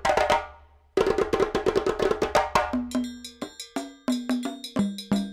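Percussive background music: a fast run of sharp strikes, a short lull about half a second in, then from about three seconds in struck pitched notes over held tones.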